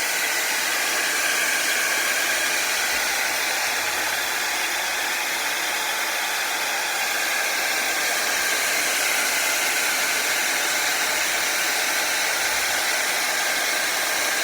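Homemade BiPAP ventilator running: its fan blows a steady rush of air down the tubing to a respirator mask.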